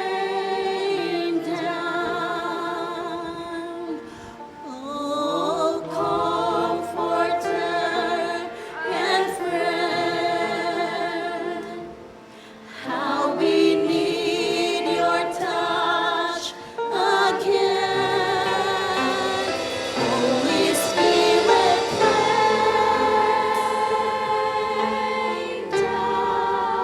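A group of voices singing a slow worship song in long, held notes with vibrato. The singing dips briefly twice, about four and twelve seconds in.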